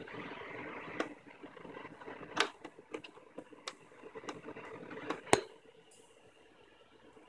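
Handling noise as electronic equipment is plugged in and worked by hand: a series of about eight sharp clicks and knocks, the loudest a sharp knock about five seconds in.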